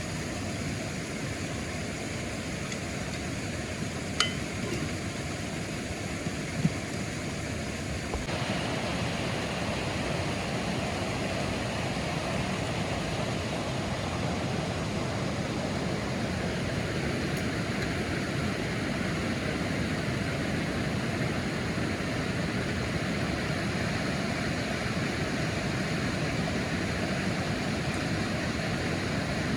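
Steady rush of falling water from a waterfall or mountain stream, stepping a little louder about eight seconds in. Two short clicks stand out a few seconds in.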